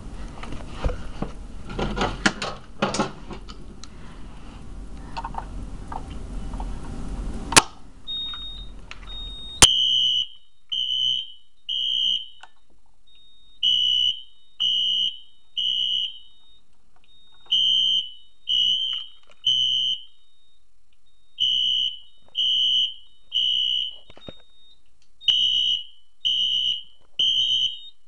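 Rustling and clicks for the first several seconds, then a sharp click. A fire alarm sounder then starts a high-pitched beeping in the temporal-three evacuation pattern: three beeps about a second apart, a short pause, repeated, with a faint higher tone between the groups.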